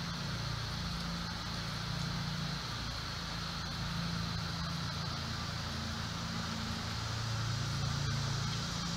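A steady low mechanical hum whose pitched tones swell and fade every few seconds, with a faint high steady buzz above it.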